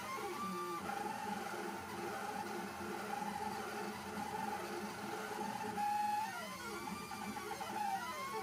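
Stepper motors of an MPCNC Primo CNC machine whining as it moves a pen to draw. The pitch sweeps up and down in arcs as the axes speed up and slow down, between stretches of steady tone.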